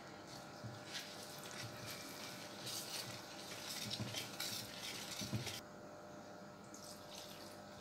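Wire whisk stirring thick semolina batter in a stainless steel bowl: a faint wet scraping with light ticks of the whisk against the bowl, dying away about five and a half seconds in.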